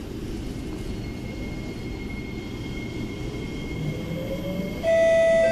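Interior running noise of an SMRT C751B metro train, a steady rumble with a faint whine rising slowly in pitch as the train gathers speed. Near the end a louder chime of steady tones starts abruptly.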